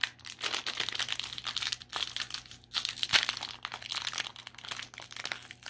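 Candy-bar wrapper crinkling and tearing as hands peel it open: irregular crackling with a few short pauses.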